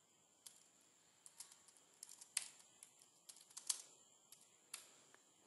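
Faint computer keyboard typing: about fifteen short key clicks at an uneven pace, starting about half a second in and stopping near the end.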